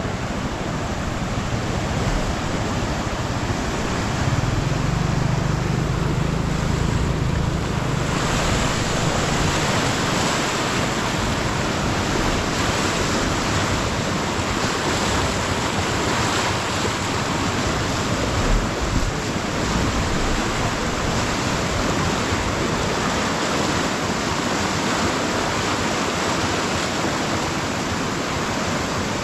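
Floodwater rushing steadily in a loud, even wash of noise; the hiss grows brighter about eight seconds in.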